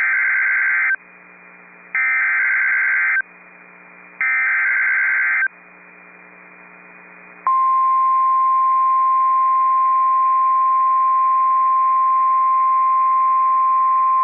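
An Emergency Alert System SAME header: three bursts of warbling digital data tones, each about a second long and a second apart, with faint radio hiss between them. About seven and a half seconds in, the steady single-pitch 1050 Hz NOAA Weather Radio warning alarm tone starts and holds, announcing a severe thunderstorm warning.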